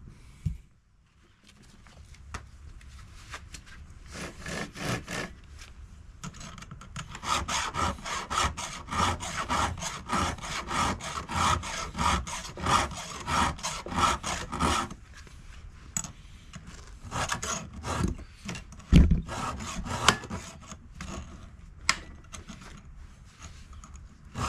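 Hand work on a chainsaw chain clamped in a bar vise: the chain being tensioned and worked around the bar, and a hand round file scraping across the chain's cutters, with a fast run of scraping strokes in the middle and sparser scrapes and knocks near the end.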